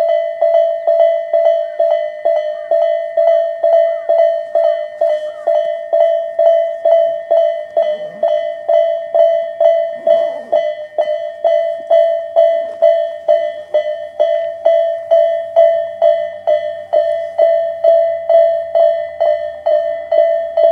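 Electronic level-crossing bell of the Tobu type (Tobu sound A) ringing, a single tone struck about twice a second. A faint low hum joins in during the last several seconds.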